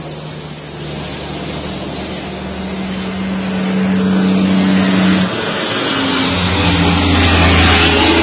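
Engines and tyres of US military convoy vehicles driving past on the road, a low steady drone that grows louder over the last few seconds as a vehicle passes close.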